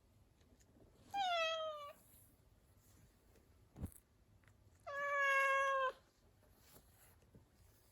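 A domestic cat meowing twice, each call lasting under a second: the first slides down in pitch, the second is longer and steadier. A short tap sounds between the two meows.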